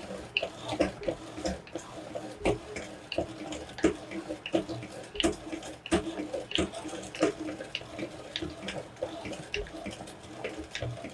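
Meat grinder crushing M&M's candies: dense, irregular crunching and cracking of the candy shells over a steady hum.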